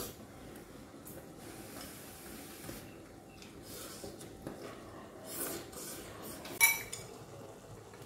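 Chopsticks clinking and scraping against small ceramic rice bowls as two people eat, with one sharp clink about six and a half seconds in.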